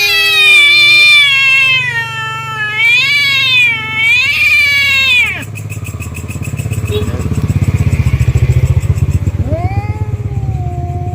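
Tomcat yowling in a fight standoff: one long, drawn-out caterwaul that wavers up and down in pitch and cuts off about five seconds in. A loud, low, pulsing rumble follows, swelling and then easing off.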